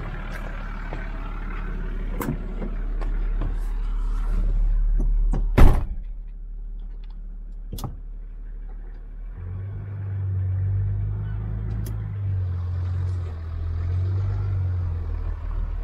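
A ute's door slams shut about five and a half seconds in, the loudest sound here, with a couple of lighter clicks after it. From about nine seconds on, the engine runs with a steady low hum.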